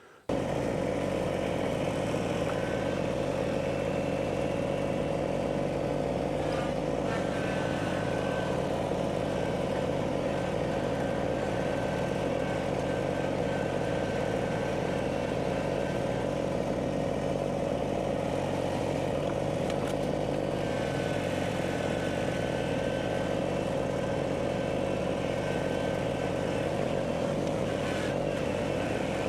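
An engine running steadily at a constant speed. It starts abruptly about a third of a second in and holds an even level, with a faint higher tone coming and going over it.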